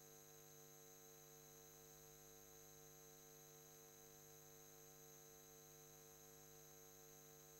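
Near silence: a faint, steady hum made of several constant tones, with no change throughout.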